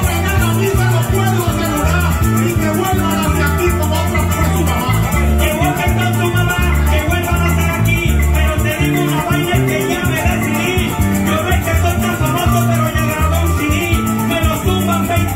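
Live Venezuelan llanero joropo music: a llanero harp playing quick plucked runs over maracas and an electric bass keeping a steady rhythm.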